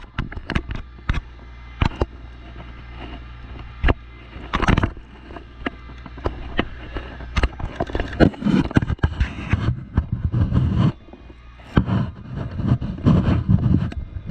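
Handling noise from an action camera being fitted to a helmet: repeated clicks, knocks and rubbing of the camera and its mount against the helmet shell, busiest in the second half.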